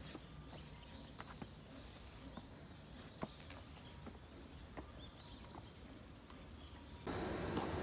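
Quiet outdoor ambience with scattered light footsteps on brick paving. About seven seconds in it cuts to the louder, steady noise of a train platform.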